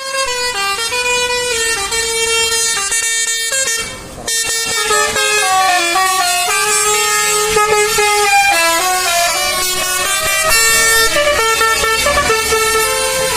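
Basuri multi-tone 'telolet' bus horn playing a tune: a loud run of stepping horn notes, several tones sounding together, with a brief break about four seconds in.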